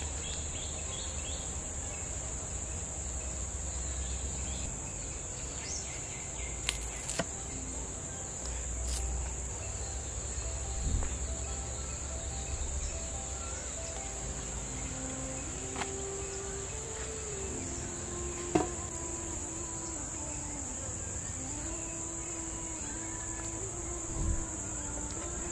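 Insects droning steadily in a high, even pitch, with a few light clicks.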